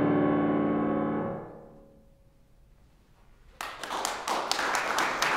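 Final chord of a piece on a grand piano ringing out and fading away, then a short hush, then an audience starting to applaud about three and a half seconds in.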